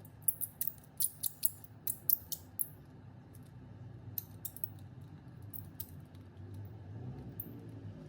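A quick run of about ten sharp, high clicks in the first three seconds, then a few fainter scattered ticks, over a low steady hum.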